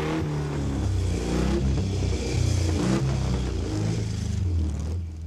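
An engine running and revving, its pitch rising and falling, dropping away near the end.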